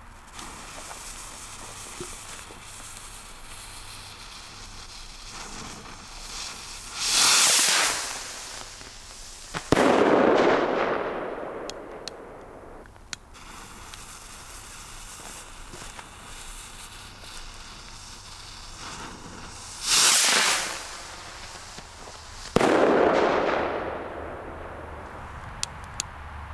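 Two Pyrostar Sky Salute rockets fired one after another. Each lifts off with a short rushing hiss, then about two seconds later bursts in a single loud bang that fades away in a long rolling echo.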